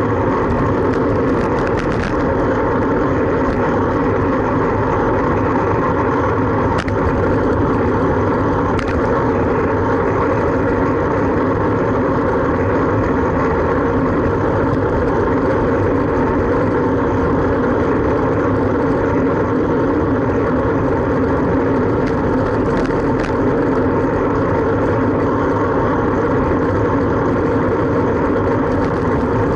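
Steady rush of wind and road noise on a camera riding on a moving fixed-gear bicycle, with city car traffic around it and a few faint clicks.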